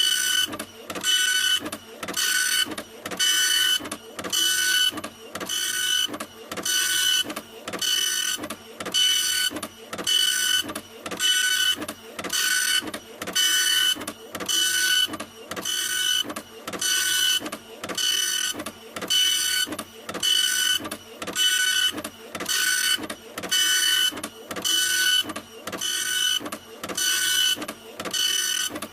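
Printer running continuously, its mechanism whirring in even, repeating passes about three every two seconds, each pass carrying a high whine over a hiss.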